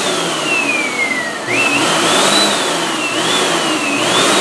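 Vacuum cleaner motor whining as its power flickers. The whine sags in pitch as the motor slows, picks up sharply about a second and a half in, then surges and sags a few times as the power cuts in and out, because the cord is being pulled and the connection is loose.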